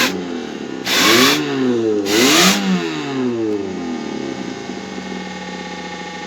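Homemade fan rig making turbo-like sounds: two loud rushes of air, about a second in and about two seconds in, with a whine that glides up and down in pitch alongside them, then a steadier hum fading away.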